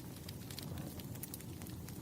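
Wood fire crackling: scattered sharp pops and snaps over a steady low rumble of burning logs.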